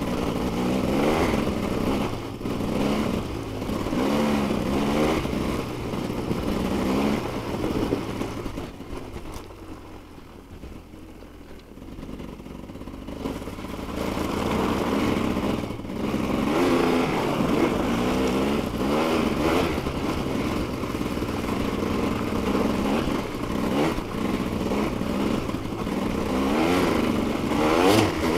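Dirt bike engine pulling along a trail, its pitch climbing again and again with the throttle. About a third of the way through it drops back quieter for a few seconds, then picks up and climbs again.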